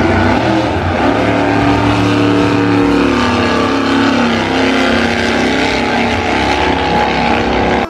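Steady, loud, engine-like mechanical running sound, its pitch slowly falling partway through.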